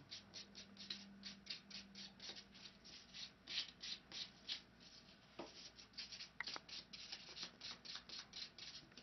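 Hand nail file rasping back and forth across a fingernail in quick, even strokes, about four a second, shaping the natural nail and smoothing its surface.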